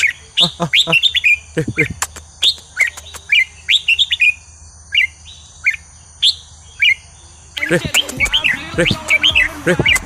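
Red-whiskered bulbul singing in short, bright chirped phrases; the notes thin out to scattered single chirps in the middle, then busy, overlapping song starts again about three-quarters of the way through.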